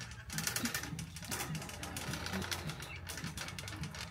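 A fast, uneven rattle of small clicks, several a second, over a steady low hum.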